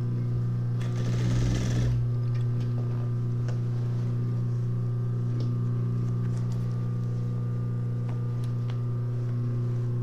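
Sewing machine running with a steady hum while putting a few light tacking stitches through denim, to secure the corners of a darn on the seat of jeans. The jeans rustle as they are shifted under the presser foot about a second in.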